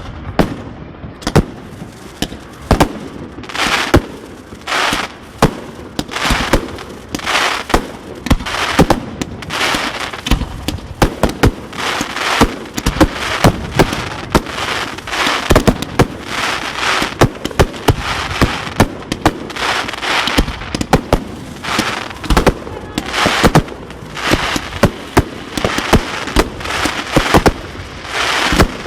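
Fireworks display: a rapid, continuous run of sharp bangs from aerial shells, with crackling and hissing between the reports.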